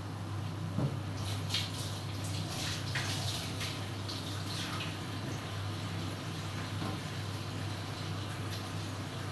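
Kangkong and seafood simmering in an uncovered electric cooker pan: bubbling and crackling, busiest in the first half, over a steady low hum.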